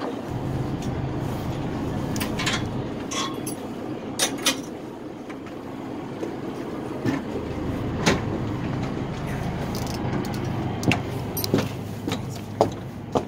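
A ferry's engine running with a steady low rumble, while footsteps clank now and then on metal gangway steps and a diamond-plate steel deck, coming more evenly near the end.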